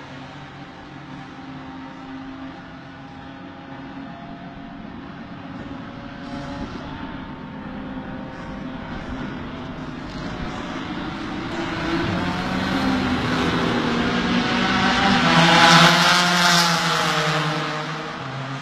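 Race car engines running, one growing steadily louder as it approaches and passes close about three quarters of the way through, its pitch dropping as it goes by and fades.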